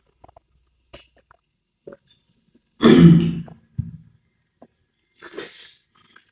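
A person clears their throat loudly once, about three seconds in, between faint mouth clicks from eating. A short breathy sound follows near the end.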